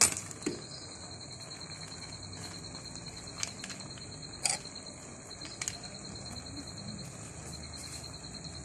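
A cricket trilling steadily in a high, fast pulse, with a few light clicks and taps of a spoon on the rice pot, the sharpest at the start and about four and a half seconds in.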